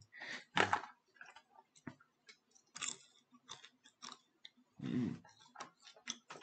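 A person chewing a mouthful of Cracker Jack caramel-coated popcorn and peanuts, an irregular run of short crisp crunches.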